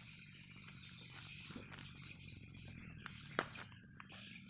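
Wooden stakes being worked into soil by hand to build a cooking hearth: a few soft knocks and scrapes, the sharpest about three and a half seconds in, over a faint steady outdoor hiss.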